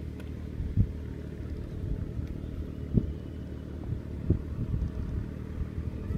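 A steady low rumble with a few soft knocks, about three in all.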